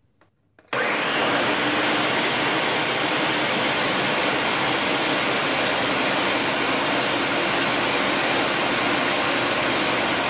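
Two countertop blenders switching on together, a bit under a second in, and running at high speed, grinding soaked soybeans and water into a slurry for soy milk. The motors and the blade churn make one steady, loud whir.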